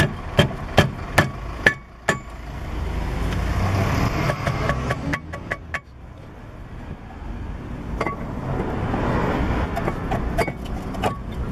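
Hammer blows cushioned by work gloves, knocking a new steel brake disc onto a car's wheel hub: five quick strikes in the first two seconds, then scattered lighter knocks and clinks as the disc is worked onto the hub, over a steady background rumble.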